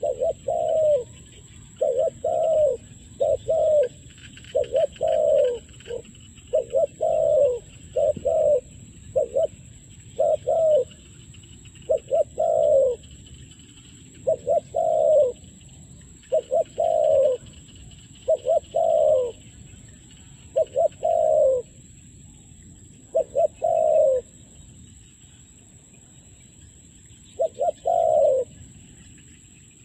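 Spotted dove cooing: a long series of low coos in twos and threes, each note dropping slightly in pitch, with a gap of a few seconds near the end before a last pair.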